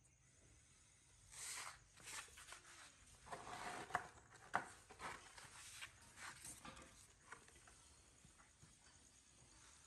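A person blowing in short, breathy puffs on hot food held in tongs, to cool it, several times over a few seconds. Two sharp clicks come about four seconds in.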